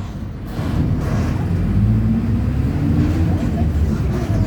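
Mercedes-Benz OF 1722M bus's diesel engine pulling at high revs under a deep drone, its pitch climbing over a couple of seconds and then holding, with the differential growling under load.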